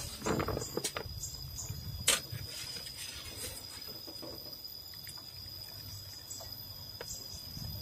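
Metal slotted ladle and wooden spatula knocking and scraping against a metal stock pot as boiled jengkol beans are scooped out of their cooking liquid. Scattered clicks, a cluster in the first second and the sharpest knock about two seconds in, under a steady high-pitched tone.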